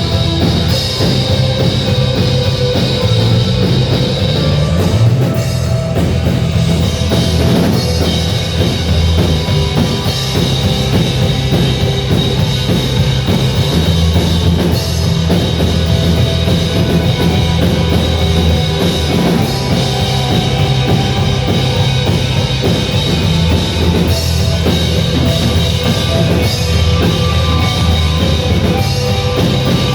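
Rock music with a driving drum kit and heavy bass, loud and continuous.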